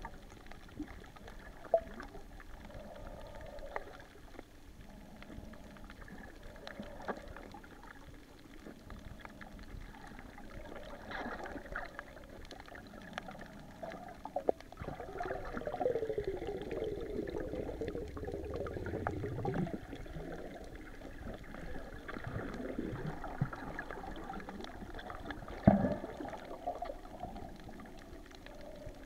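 Water sloshing and gurgling around a camera recording underwater, with a few sharp clicks. There is a louder stretch of gurgling around the middle.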